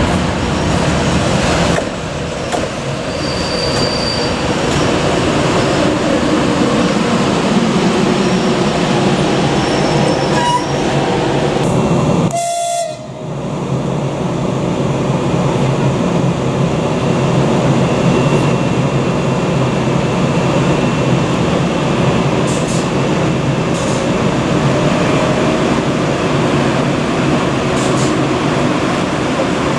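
A locomotive-hauled passenger train running on the rails, giving a steady rumble of wheels and coaches. It breaks off briefly about twelve seconds in, then carries on.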